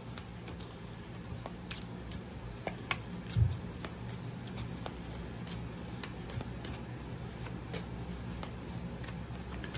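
A deck of oracle cards being shuffled by hand: a scatter of soft, irregular card clicks and slaps, with one duller thump a little past three seconds in. A steady low hum runs underneath.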